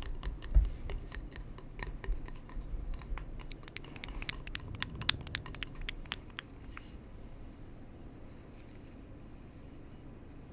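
Close-miked ASMR tapping and scratching on a hard surface: rapid, irregular light clicks and scratches, tapering off to a faint rustle after about six seconds.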